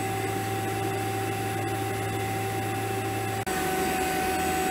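Refrigeration vacuum pump running with a steady hum and a steady whine. A very brief dropout comes about three and a half seconds in, after which the hum sits slightly lower.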